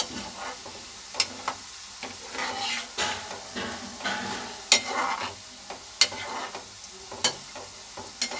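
Besan-coated peanuts deep-frying in hot oil in a wok on a low flame, sizzling steadily while a metal slotted spoon stirs and lifts them. The spoon taps sharply against the pan about six times.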